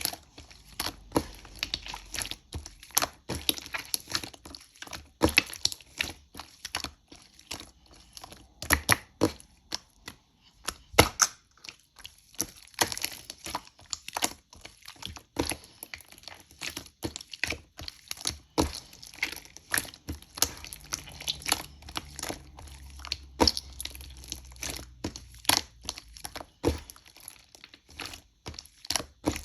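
Slime being squeezed and pressed by hand, giving off irregular sharp clicks and crackles, several a second.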